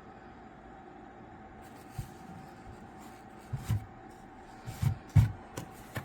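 Handling noises: about five short dull knocks and bumps, the first about two seconds in and most of the rest in the second half, over a faint steady hum.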